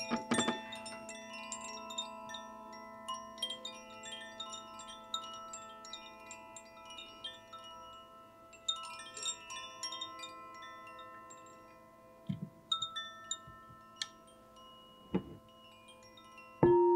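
Two handheld bamboo-cased chimes swung gently, giving irregular clusters of soft tinkling notes that ring on and fade, over steady lingering tones. Near the end a crystal singing bowl is struck and starts a loud steady ringing hum.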